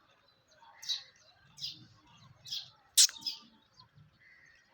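Small birds chirping, four short high chirps spaced under a second apart, with one sharp click about three seconds in.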